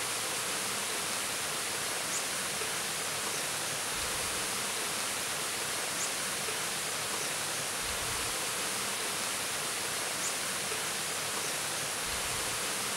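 Steady, even rush of flowing creek water, with a few faint high chirps.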